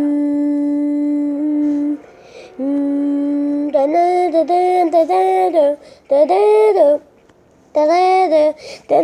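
Goal horn sounding one long steady blast of about two seconds, then a shorter blast. About four seconds in, a run of short held notes of the goal song begins, in groups broken by brief gaps.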